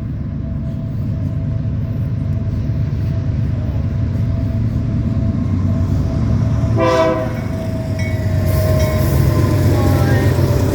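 BNSF autorack freight train rolling past with a steady low rumble of wheels on rail and a steady high tone underneath. About seven seconds in, the diesel locomotive's air horn gives a single short honk.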